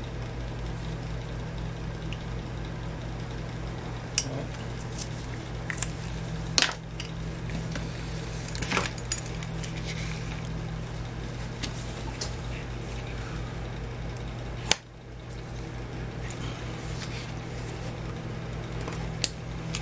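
Hand tools being handled on a wooden workbench: a few sharp clicks and taps as tools are picked up and set down, with a utility knife starting on a piece of rubber inner tube near the end, over a steady low hum.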